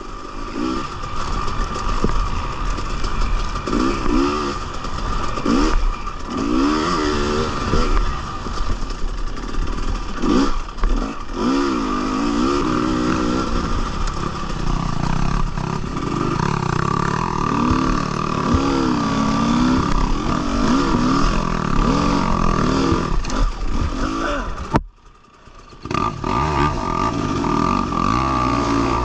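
Husqvarna TX 300 two-stroke dirt bike engine revving up and down over and over as the bike is ridden hard through a race course. Near the end the engine sound drops away for about a second, then picks up again.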